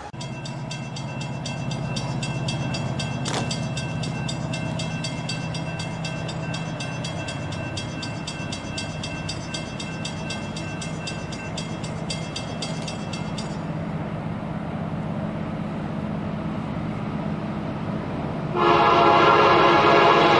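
A bell rings rapidly and evenly over the low steady drone of diesel locomotive engines, then stops about two-thirds of the way through. Near the end an approaching locomotive sounds its air horn loudly, a chord of several tones.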